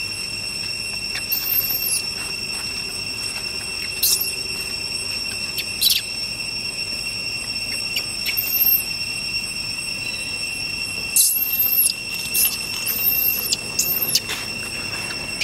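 Insects droning with a steady high-pitched tone, broken by short, very high squeaks: single ones every couple of seconds, then several in quick succession near the end.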